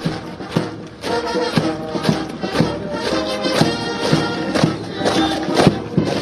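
Military brass band playing a march, with a strong drum beat about twice a second under the brass.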